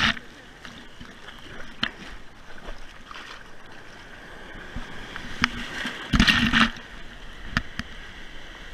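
Shallow beach surf swishing and splashing around a camera held at the water's surface. A loud wave splash comes about six seconds in, with a few sharp taps here and there.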